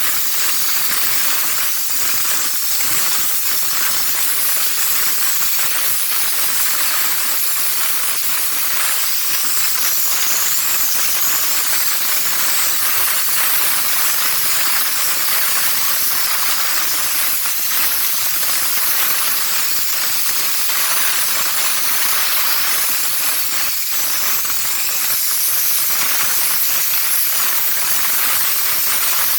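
Compressed-air spray gun hissing steadily as it sprays anti-rust undercoating onto a car's underbody.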